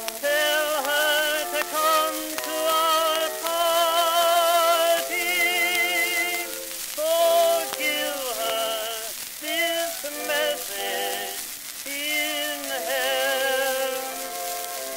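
Victor 78 rpm shellac record playing: a tenor singing with a wavering vibrato over a small orchestra, thin-sounding with no deep bass, under a steady layer of surface hiss and crackle.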